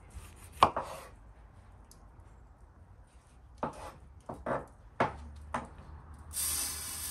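Knife chopping peeled mandarins on a wooden cutting board: sharp knocks of the blade striking the board, a couple near the start and a run of several more in the middle. Near the end a steady hiss begins, granulated sugar being poured onto a metal baking tray.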